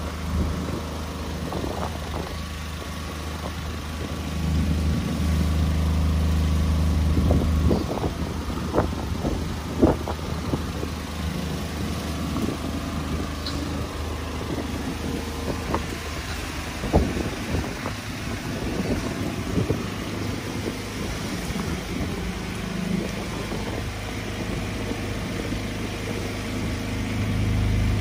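Street ambience with the low, steady hum of a motor vehicle engine. The hum fades about a third of the way in and returns near the end, with a few scattered knocks in between.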